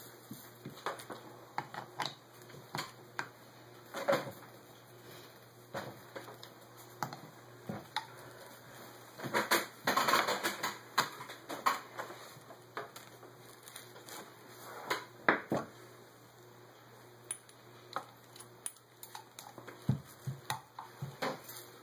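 Irregular metal clinks, taps and knocks from handling the cast-metal parts of a Holley 600 carburetor, with the main body and throttle base plate being turned over and set down. There is a denser run of clatter about ten seconds in.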